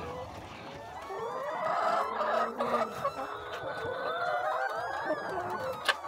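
A flock of brown laying hens clucking and calling over one another in a poultry house. The calls grow louder about two seconds in.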